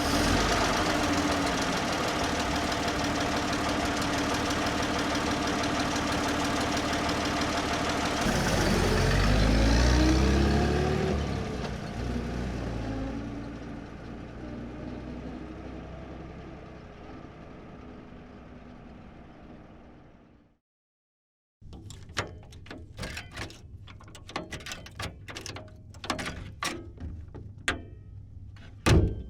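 A 1927 sedan's engine idles steadily, then revs with a rising pitch about eight seconds in as the car pulls away, and fades out over the next twelve seconds. After a second of silence a key rattles and turns in the lock and the latch clicks, and the door is opened and shut with a loud slam near the end.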